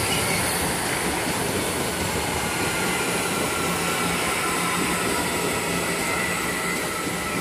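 CPTM electric commuter train running past along the platform: a steady rumble of wheels on rail with a faint steady whine on top.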